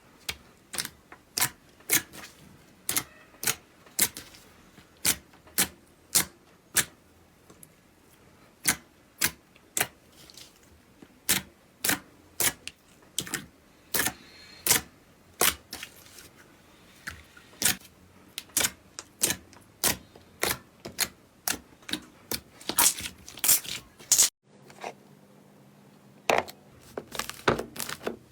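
Slime being squeezed and pressed, letting off sharp clicking pops about one to two a second. It stops briefly about 24 s in, then goes on as denser, faster crackling near the end.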